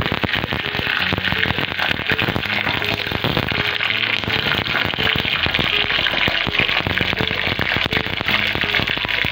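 Ghee sizzling and crackling in a small tadka pan as a whole dried red chilli and curry leaves fry in it: a dense, steady crackle of tiny pops over a hiss.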